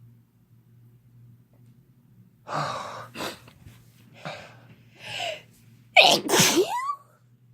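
A person's induced sneeze. Several short gasping in-breaths build up from about two and a half seconds in, then comes one loud sneeze about six seconds in, ending in a brief voiced cry.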